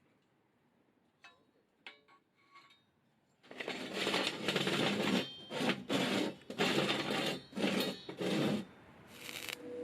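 A few light clicks, then a run of about seven loud scraping strokes with short gaps between them, which stop about a second before the end.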